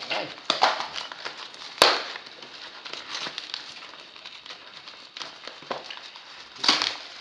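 Yellow plastic-and-tape parcel wrapping crackling and crinkling as it is cut and torn open by hand, in irregular bursts with a sharp snap about two seconds in and another loud rustle near the end.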